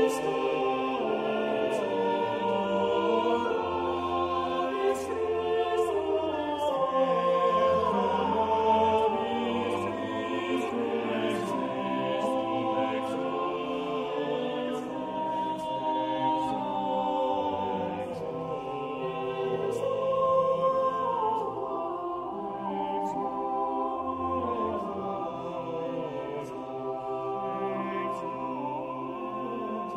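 Background choral music: several voices singing slow, sustained lines.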